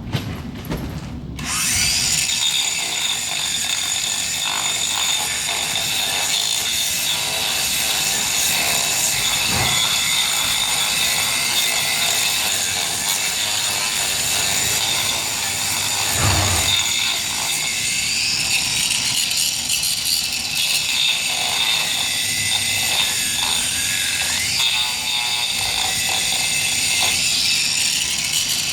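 An angle grinder starts about a second and a half in and runs steadily as it grinds down a horse's hoof: a high-pitched whine over a rasping grind.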